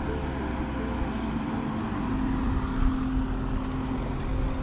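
A car driving past on the road, its engine and tyres heard as a steady rumble.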